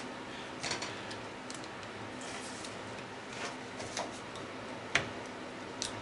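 Scattered light clicks and metallic taps of driver bits being handled, taken from a plastic bit holder and fitted to a cordless drill, with one sharper click about five seconds in, over a steady low hum.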